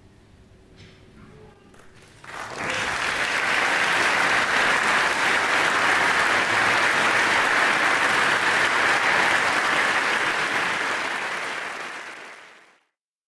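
Audience applauding: quiet for the first two seconds, then a sudden burst of steady, dense clapping that fades away near the end.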